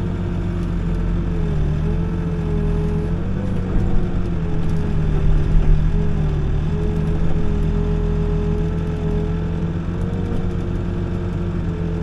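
Excavator's diesel engine running steadily under digging load with a steady whine that wavers slightly in pitch, heard from inside the cab as the boom and bucket work.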